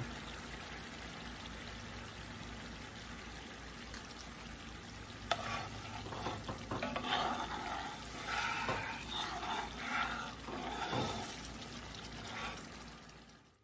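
Roux gravy with chicken broth simmering and bubbling in a cast-iron skillet. From about five seconds in, a metal spatula stirs and scrapes across the pan bottom in irregular strokes, then stops near the end.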